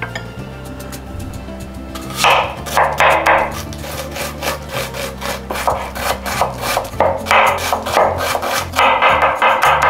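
Kitchen knife chopping a red onion on a wooden board: a run of quick cutting strokes that starts about two seconds in, over a background music track.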